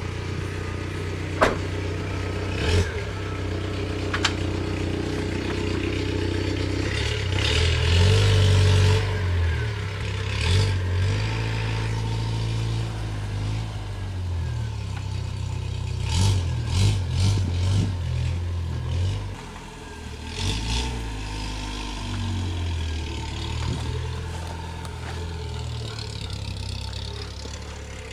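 Car engine running, its pitch rising and falling as it revs, with a few sharp clicks in the first few seconds.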